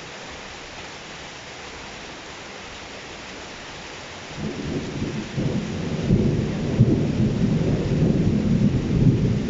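Steady rain hiss, then about four seconds in a low rolling rumble of thunder builds up and keeps rumbling, louder than the rain.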